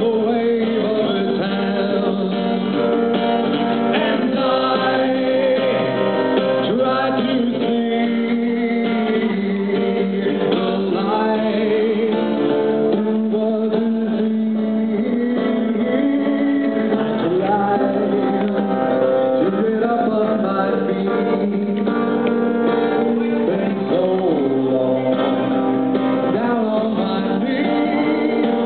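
A male singer performing a song live, accompanied by acoustic guitar.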